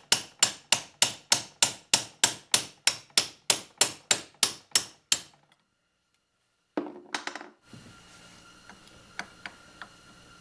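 Hammer tapping a steel punch to drive a stuck wrist pin out of a small-engine piston held in a vise: sharp, even metal-on-metal blows, about three a second, for about five seconds. After a break comes a short metallic clatter and a few light clicks.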